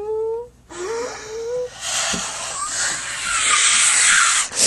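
A girl's voice: two short held, wavering notes, then from about two seconds in a loud, raspy, breathy cry like a hoarse scream or hiss, which breaks off near the end.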